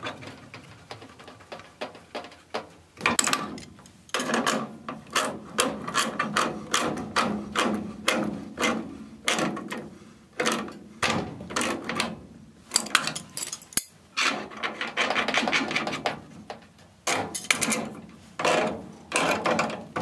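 Metal clicking and scraping of water-pump pliers gripping and turning a steel gas-pipe union nut against a gas control valve's fitting while the gas line is tightened. Many short irregular clicks and scrapes, coming thicker from about three seconds in.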